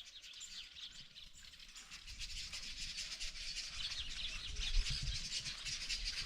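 Small birds chirping busily, with low rustling and bumps of handling starting about two seconds in.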